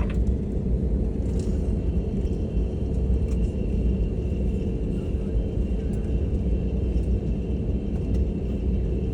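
Airbus A321LR Neo cabin noise just after landing: a steady low rumble from the engines and airframe as the airliner rolls on the ground. A faint, high, steady whine joins in about a second and a half in.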